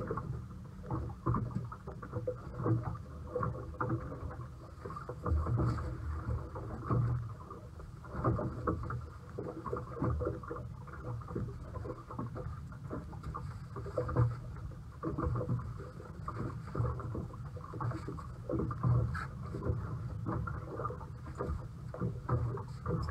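A boat on the water: a steady low rumble with frequent irregular knocks and splashes.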